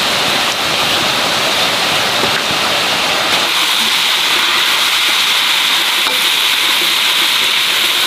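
Meat sizzling as it is stir-fried in a hot metal wok, a steady loud hiss. The deeper part of the sound drops away about three and a half seconds in.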